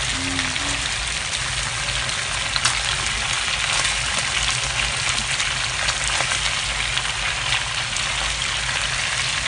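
Chicken pieces frying in hot oil in a wok, a steady sizzle, as they are browned until golden.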